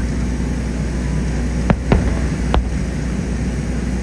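Aerial fireworks shells bursting at a distance: about three sharp bangs a little before the middle, over a steady low rumble.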